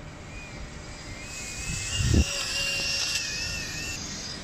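Mini RC hovercraft's small brushless motors (Mamba 1105 5500kv with Gemfan D51 propellers) give a thin, high whine whose pitch wavers up and down with throttle and steering, from about a second in until near the end. A short low thump comes just after two seconds in.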